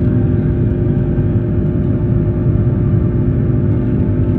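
Airbus A330-200 airliner heard from inside the cabin: the jet engines run as a steady rumble with a constant hum.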